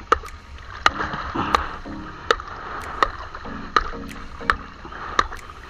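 Background music with a steady clicking beat, about one beat every 0.7 seconds, over a low repeating melody.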